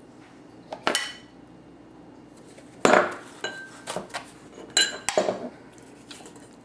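Kitchen utensils knocking and clinking against a stainless steel mixing bowl and small bowls: about six sharp knocks, the loudest about three seconds in, several with a short metallic ring.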